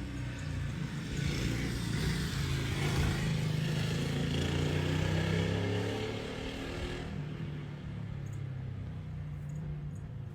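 Motor vehicle engine running with a steady low hum, while a rush of vehicle noise builds over the first few seconds and then falls away about seven seconds in.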